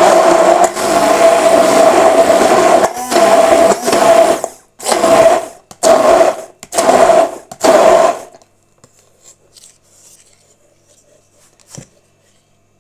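Immersion (stick) blender running steadily in a tall beaker, emulsifying egg and oil into thick mayonnaise. After about four and a half seconds it is pulsed in four short bursts, then switched off about eight seconds in. A light knock comes near the end.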